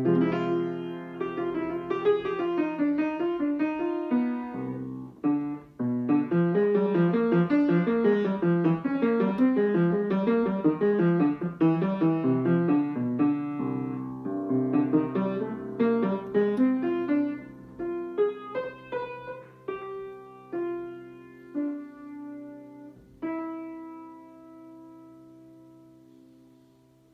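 A child playing an upright piano. A busy run of quick notes gives way to slower, spaced-out notes and chords, ending on a final chord about 23 seconds in that rings and slowly fades away.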